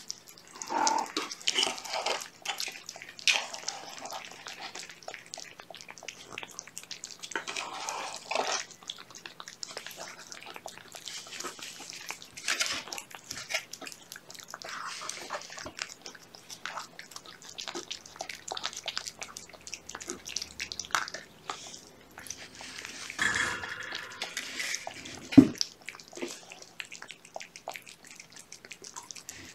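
A mother cat and her kittens chewing and lapping wet cat food from a plate, a steady run of small wet smacking and clicking sounds. Near the end there is a single sharp knock.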